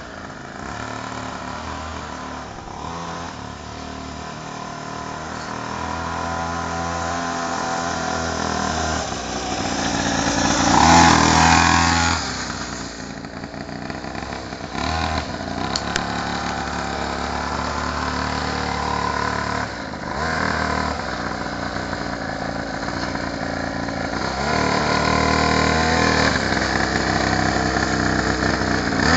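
A children's mini motorcycle's small engine running, its pitch and loudness rising and falling, loudest when it revs about eleven seconds in.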